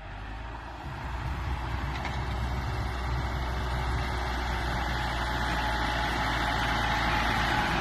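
Front-loader farm tractor's diesel engine running as it pushes through deep snow. It grows louder over the first couple of seconds as the tractor comes closer, then holds a steady hum.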